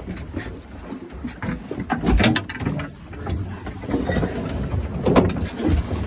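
Knocks, thumps and clatter at a boat's rail as the crew gaffs a large halibut, with heavy thumps about two seconds in and again about five seconds in.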